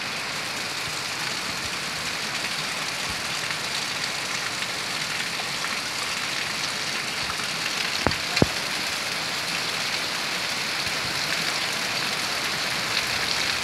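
Steady rain falling, with two sharp knocks in quick succession about eight seconds in.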